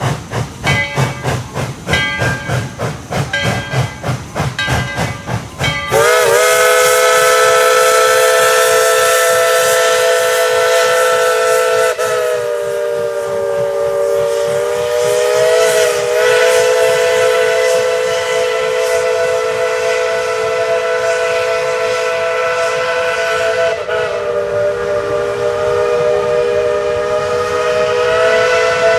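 Steam locomotive No. 12, a 1917 Baldwin 4-6-0, working hard under load with quick, even exhaust chuffs. About six seconds in its steam whistle opens up and sounds a loud chord, held to the end and wavering briefly a few times.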